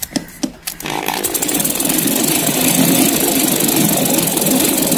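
Corded electric drill with a screwdriver bit driving a screw into a block of wood: a few short clicks, then the motor runs steadily from about a second in as the screw goes in.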